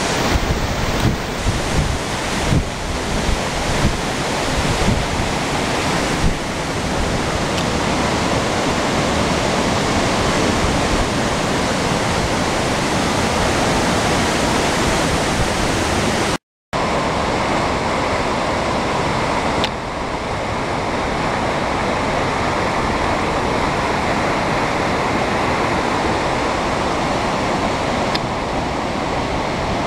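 Steady rush of a waterfall and creek, with gusty rumbling on the microphone in the first few seconds. The sound drops out for a split second about halfway, then the even rush resumes.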